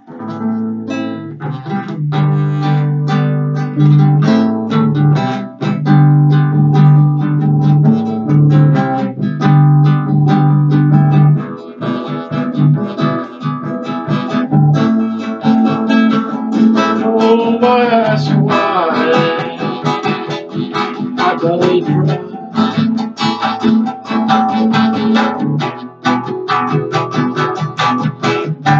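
Guitar playing the instrumental opening of a song, strumming chords steadily, with a melody line of bending, wavering notes about two-thirds of the way through.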